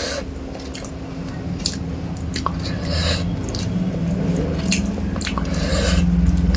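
Close-miked chewing of rice and fish curry: wet, squishy mouth sounds with scattered sharp clicks and smacks at an irregular pace.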